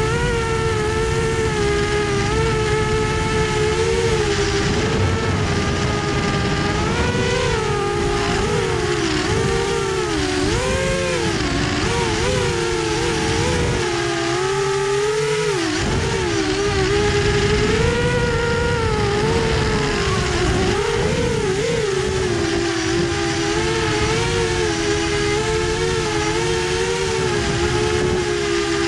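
Drone's electric motors and propellers whining steadily, the pitch wavering up and down with throttle and swooping sharply a few times in the middle as it manoeuvres.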